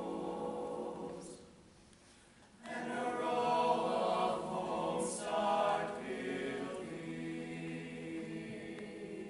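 Mixed-voice vocal jazz choir singing a cappella. A held chord breaks off about a second in, and after a short pause the voices come back in louder, then ease into a softer sustained chord near the end.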